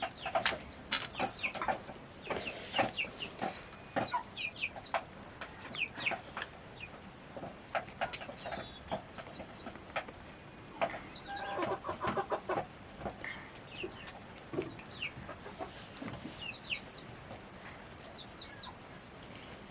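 Chickens clucking, with many short, high falling chirps and scattered sharp clicks throughout.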